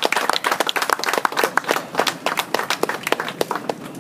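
A small crowd applauding, its separate handclaps thinning out and dying away near the end.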